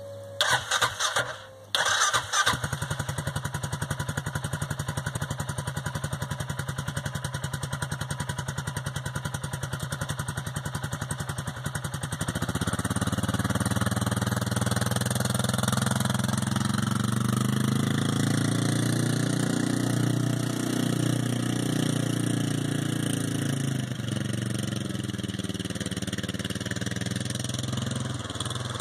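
Arctic Cat XR 700 XT ATV's single-cylinder engine running through a GSE Performance Trail Tamer baffled aftermarket muffler: a few quick bursts as it starts in the first couple of seconds, then a steady idle. About twelve seconds in it gets louder and the pitch rises and falls as the ATV is ridden off under throttle.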